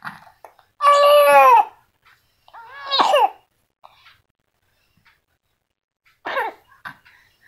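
A baby vocalizing in three loud, high-pitched cries. The longest comes about a second in and falls in pitch at its end, a shorter one rises and then falls about three seconds in, and a brief falling one comes near the end, with faint rustling between them.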